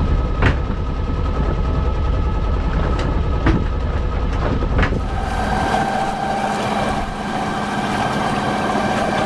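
Sailboat's inboard engine running steadily under way, with wind and water noise and a few sharp knocks in the first half. About five seconds in, the deep rumble drops away and a steadier hum takes over.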